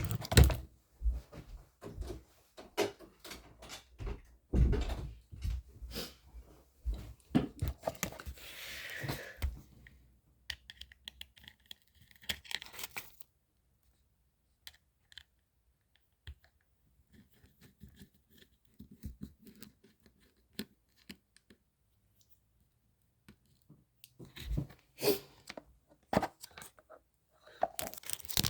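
Small objects being handled at close range: scattered clicks, taps and knocks, with a stretch of tearing or rustling noise about eight seconds in, then a quiet spell before the clicking picks up again near the end.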